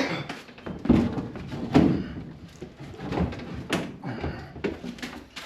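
A series of knocks and thuds, about four of them sharp, from a gas furnace unit being handled and set in place.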